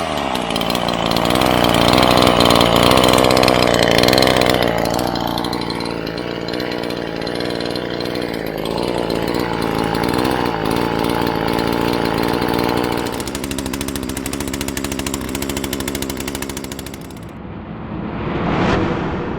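Neotec NH843 43cc two-stroke chainsaw engine running at a steady speed, loudest in the first few seconds and easing off a little after about five seconds. A short swell rises and falls near the end.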